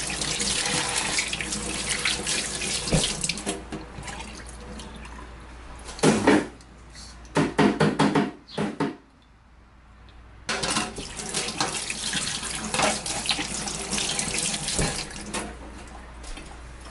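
Kitchen tap running into a stainless steel sink while raw chicken is rinsed by hand, with louder, choppy splashing around six and eight seconds in. The flow stops briefly a little after nine seconds, then runs again.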